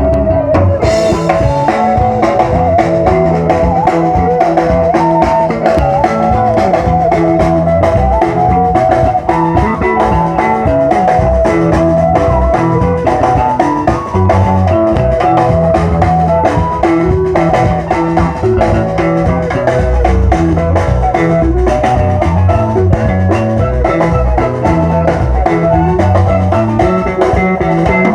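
Instrumental music played loud without a break: guitars over a drum kit with a steady beat.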